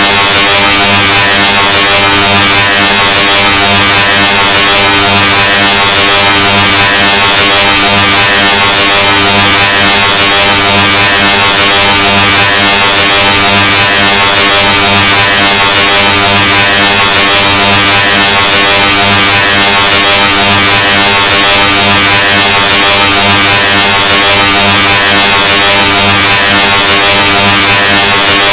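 The 'Loudness 2.0' meme sound effect: a steady, harshly distorted low buzz with a hissy edge, played at near full scale without a break.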